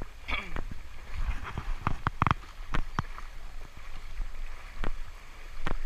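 Small boat moving on a river: faint water sounds with scattered sharp knocks, about nine in all, one with a short ring about two seconds in.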